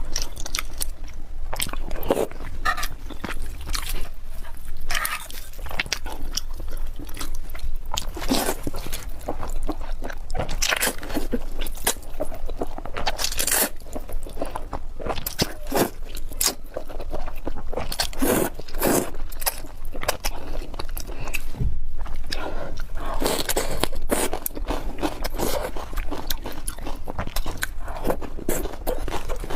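Close-miked eating: a person biting and chewing fried eggs and noodles, with many short sharp bite and mouth sounds one after another.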